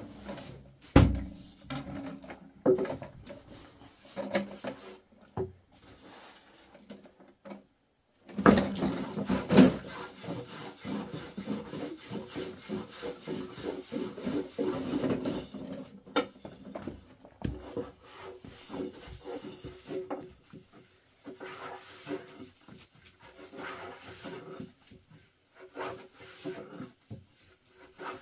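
Wood rubbing and knocking from handwork, irregular and busy, with one sharp loud knock about a second in.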